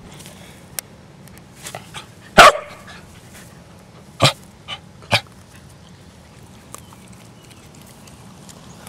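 Corgi giving short barks close to the microphone. The loudest comes about two and a half seconds in, then three more over the next three seconds.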